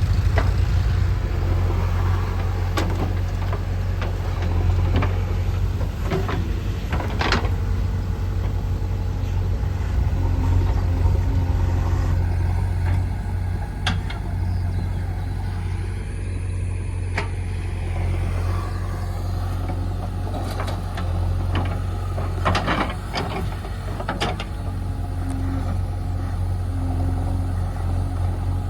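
Diesel engine of a JCB 3DX backhoe loader running steadily with a deep rumble, with a few short knocks here and there.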